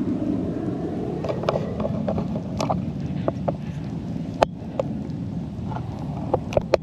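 Steady low background rumble with scattered sharp clicks and knocks, about a dozen in all, several coming in quick pairs, the loudest about four and a half seconds in.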